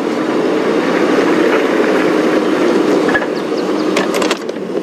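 Open game-drive vehicle driving over rough bush ground: a steady engine and road noise with rattling and a few sharp knocks, easing slightly near the end.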